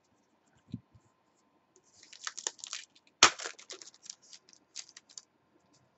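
Foil trading-card pack wrapper being torn open and crinkled by hand: a run of crackling rips in the middle, the loudest a single sharp tear, then smaller crinkles.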